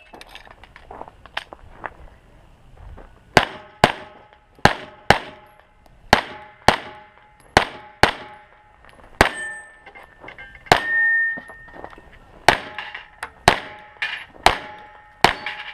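Rapid pistol fire, the shots mostly in quick pairs, with steel targets ringing after the hits; one plate rings on for about a second near the middle.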